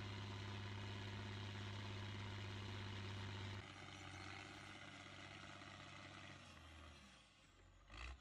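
Faint, steady machine hum that drops lower about three and a half seconds in and fades to near silence near the end, with a brief low burst just before the end.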